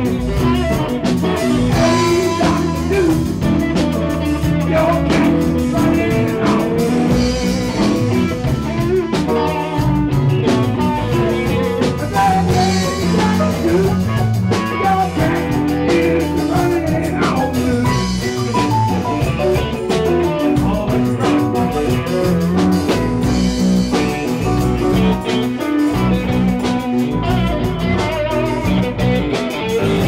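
A live band playing a song, with electric guitar leading over a drum kit, bass and keyboard.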